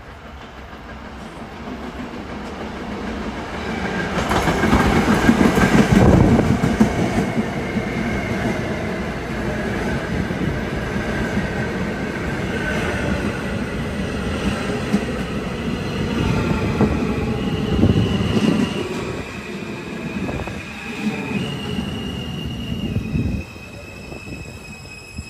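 An R160 subway train pulling into a station: a rumble and clatter that builds as it passes close by, then a whine that falls in pitch and changes in steps as it brakes, until it stops near the end.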